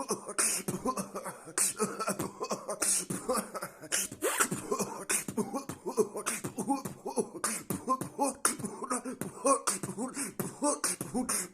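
Freestyle beatboxing: a fast, dense run of mouth-made percussive strokes and hissing hi-hat-like bursts, with short pitched vocal sounds between them.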